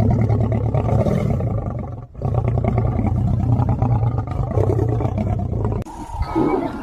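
A big cat growling and roaring loudly in two long stretches, broken by a short pause about two seconds in.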